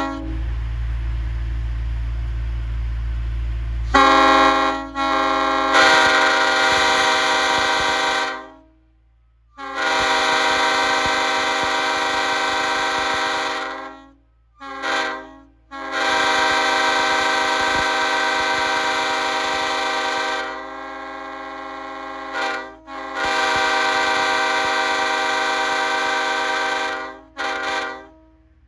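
A multi-chime train air horn sounds four long, steady blasts of about four seconds each, with short toots between them. The first four seconds hold a loud low rumble.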